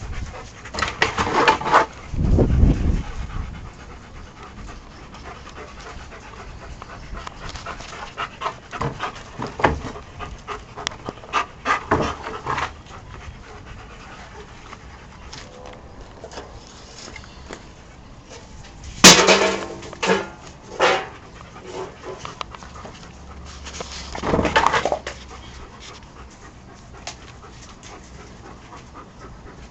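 Several Rottweilers panting and moving about close by, with scattered knocks and clatters. The loudest is a single sharp sound about 19 seconds in, followed by a few smaller ones.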